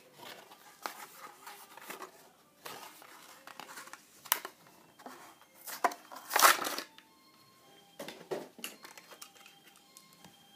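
Plastic blister pack and cardboard backing card of a Hot Wheels die-cast car being crinkled and torn open by hand, in irregular bursts, the loudest about six and a half seconds in.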